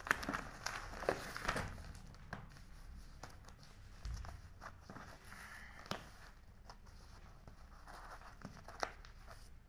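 A stack of newspapers rustling and crinkling as string is wound and knotted around it, with scattered light taps and clicks; the rustling is busiest in the first couple of seconds.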